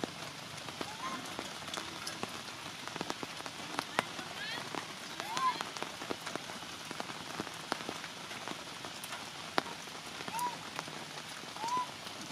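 Steady heavy rain hissing on surfaces, with sharp drips landing close by. A baby macaque gives four short, high whimpers over it, each rising and falling in pitch.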